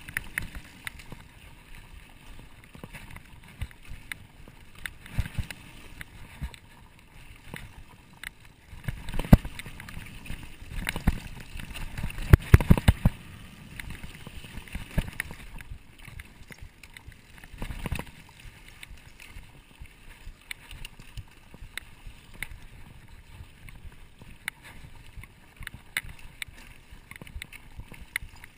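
Mountain bike ridden on a dirt singletrack, heard from a camera on the handlebar: tyres rolling over sandy dirt and dry leaves, with the bike and mount rattling and knocking over bumps. A rougher stretch of heavy knocks comes about a third of the way in, and another single jolt a little past halfway.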